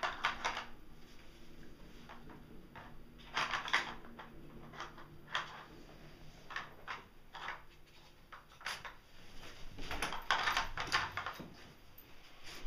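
Hard plastic pieces of a Nina Ottosson finder treat-puzzle toy clattering and knocking in irregular bursts as a small dog works at the lids and tray for hidden treats.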